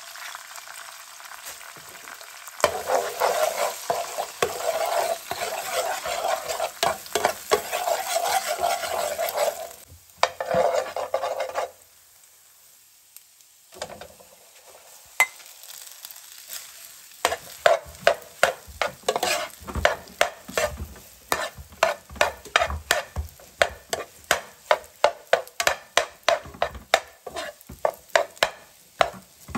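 Eggs frying in hot oil in a frying pan, sizzling loudly as they are stirred and scrambled. After a short quiet spell, rice is stir-fried with a metal spoon that scrapes and taps the pan in quick rhythmic strokes, about three a second.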